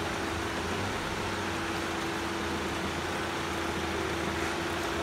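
Steady mechanical hum from the parked van, with a constant mid tone over a low drone, getting slightly louder near the end.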